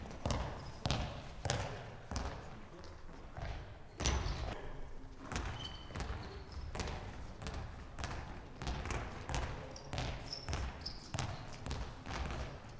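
A handball bounced on a sports-hall floor while dribbling, a steady run of thuds about two a second, with a few short high squeaks.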